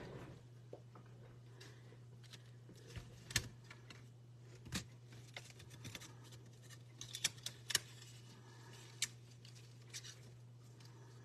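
Craft dies, clear plastic, paper and tape handled on a craft mat: scattered light clicks and taps, the sharpest a third of the way in and again about two-thirds in, over a steady low hum.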